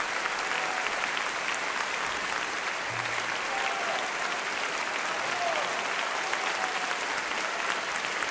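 Concert audience applauding enthusiastically, a steady dense clapping with no letup.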